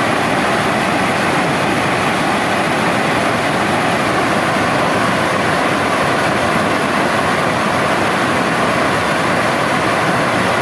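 Water pouring over a dam's waterfall, a loud steady rush that does not change.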